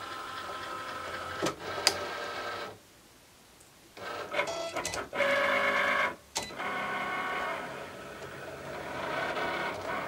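Cricut Explore Air 2 cutting machine running a cut: its motors whine in changing pitches as the carriage moves across the mat and the rollers feed it back and forth, with a few sharp clicks and a pause of about a second near three seconds in.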